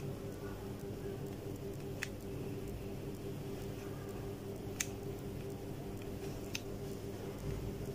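Three short, sharp clicks of buttons pressed on a small infrared remote control for an RGB LED strip, spaced a second or two apart, over a steady low hum.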